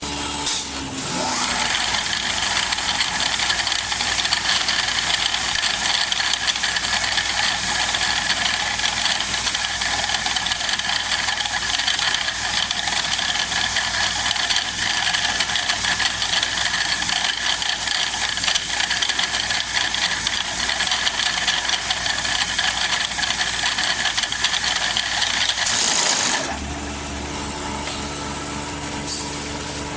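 Automatic woodworking machine running: a dense, steady rattling noise of the machine at work on wood. About 26 seconds in it stops abruptly, leaving a quieter steady motor hum.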